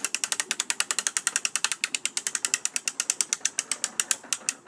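Ratchet of the hand-cranked wind-up spring starter on a 1964 Powercraft 3 hp lawn mower, clicking rapidly and evenly, about a dozen clicks a second, as the crank winds the starter spring.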